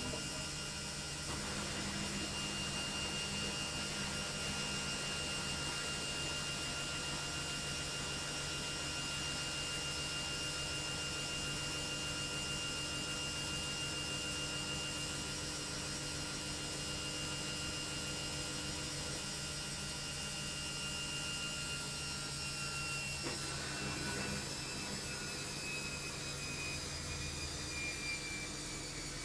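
Logik washing machine in its final spin, the drum and motor spinning at speed with a steady whine over a low hum. About 23 seconds in, the whine starts to fall slowly in pitch.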